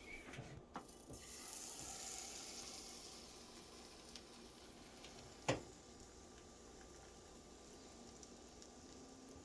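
Pancake batter sizzling faintly in a hot frying pan, loudest in the first few seconds and then dying down, with a single sharp knock about five and a half seconds in.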